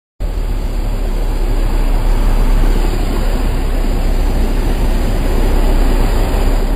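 Jeep Grand Cherokee driving hard through a deep mud hole, its engine and the churning mud and spray making a loud, dense, steady rumble with a heavy low end. The sound starts abruptly just after the beginning.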